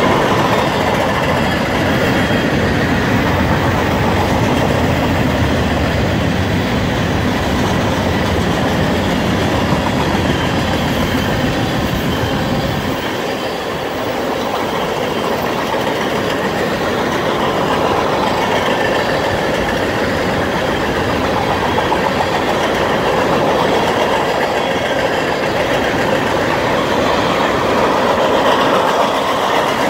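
Freight cars of a long mixed freight train rolling past at track speed: a steady, loud noise of steel wheels running over the rails. The deepest rumble falls away about halfway through.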